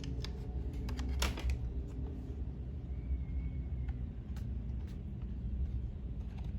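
Small plastic clicks and handling noise as the cover is pressed onto a slim laptop hard-drive caddy: a cluster of sharp clicks about a second in, then a few faint scattered taps, over a steady low hum.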